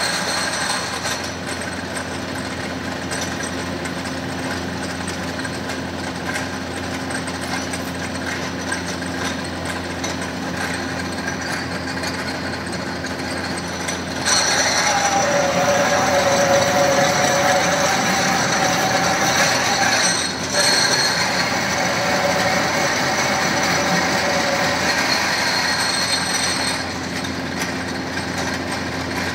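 Pillar drill running with a steady hum. About halfway through it turns louder, with a wavering whine as the bit cuts into the metal part held in the vise; this stops for a moment, carries on, and drops back to the plain running hum near the end.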